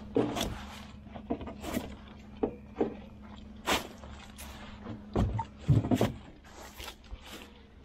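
Irregular knocks and clatters, about a dozen spread unevenly, over a steady low hum.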